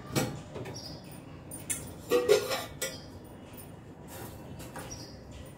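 Stainless steel kitchen vessels and a lid being handled, knocking and clinking a few times, loudest a little over two seconds in, over a faint steady hiss.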